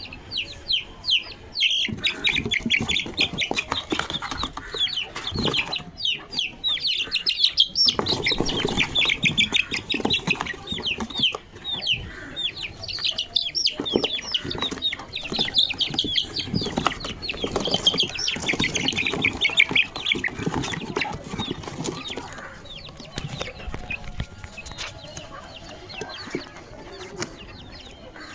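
Young Aseel chicks peeping: rapid, short downward-sliding cheeps, several a second, over rustling and scuffling. The peeping thins out after about twenty seconds.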